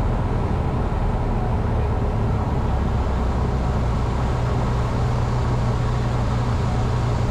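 Cessna 150's four-cylinder Continental O-200 engine and propeller running steadily in flight, heard from inside the cabin as an even, loud low drone.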